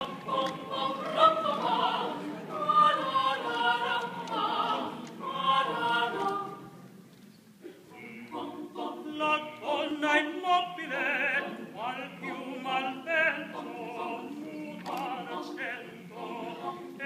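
An a cappella choir and a male soloist singing in operatic style; the voices drop away briefly about seven seconds in, then resume with strong vibrato.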